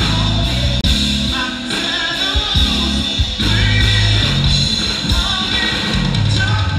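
Live rock band playing loud through a stage PA, with a singer over guitar, bass and drums.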